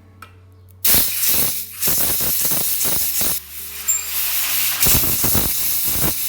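Pressurised spray hissing in several long blasts, used to clean a valve and the inside of a cylinder head.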